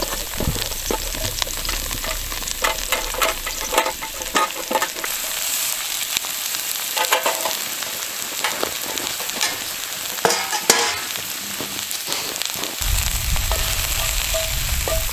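Food sizzling in a hot cast iron pan over a campfire, with a run of short clicks and scrapes from a utensil working in the pan. A low rumble comes in near the end.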